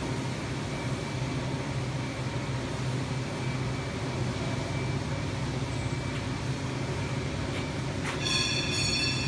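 Steady factory hall machinery noise: a low hum under a broad hiss. Near the end a click is followed by a brief high-pitched squeal lasting about a second.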